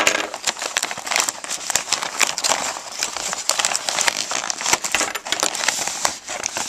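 A knife sawing and slicing through a parcel's packaging, with steady crinkling, crackling and scratching of the wrapping as it is cut and pulled.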